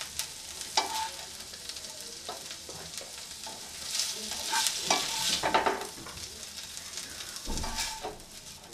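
Plastic slotted spatula scraping and stirring butter-fried chicken strips around a non-stick frying pan, with a light sizzle underneath. The chicken is done and is being scooped out of the pan. The scraping is busiest about four to six seconds in.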